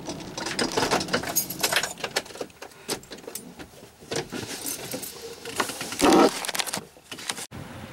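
Rapid clicking and rattling inside a vehicle driving slowly along a rough dirt road, with a brief louder noise about six seconds in; the sound cuts off abruptly near the end.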